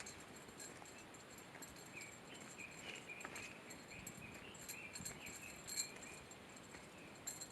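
Faint birdsong in mountain forest: many short, high chirps and wavering calls repeat irregularly, over a low rustle of a hiker moving along a trail.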